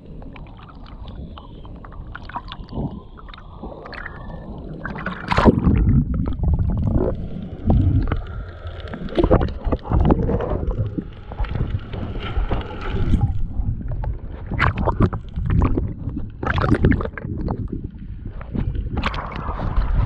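Sea water sloshing and splashing against a camera at the surface as a snorkeler swims, with gurgling when it dips under. The surges come irregularly and grow louder about five seconds in.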